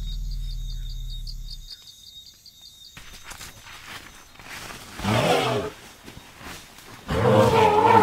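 African forest elephant rumbling low, the rumble dying away about two seconds in, followed by two loud, higher elephant calls with a wavering pitch, about five and seven seconds in, each under a second long.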